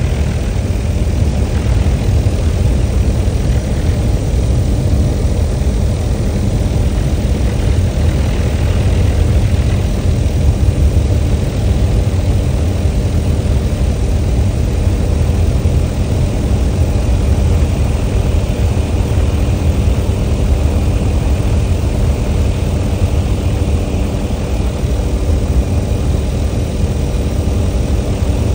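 A helicopter's engine and main rotor running in steady cruise flight, heard from aboard: a loud, even low drone with a steady pitched hum on top.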